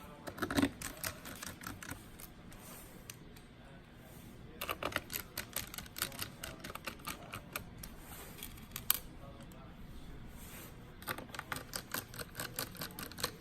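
Three runs of quick, light clicks, several a second, with pauses between them; the sharpest clicks come about half a second in and just before the ninth second.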